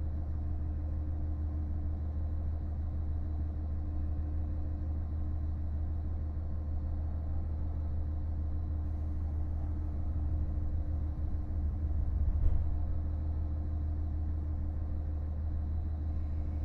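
KiHa 48 500-series diesel railcar heard from on board while running: a steady low engine drone and rumble, with a single short knock about twelve seconds in.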